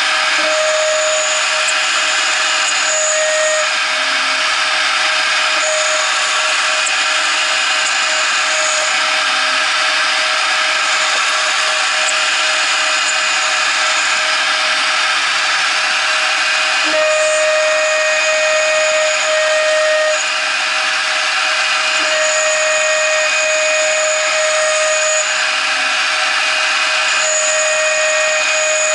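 CNC router's 0.75 kW spindle driving a 2 mm end mill through aluminium angle: a loud, steady tone over a dense hissing cutting noise. The tone grows stronger and weaker every few seconds as the cutter works through its passes.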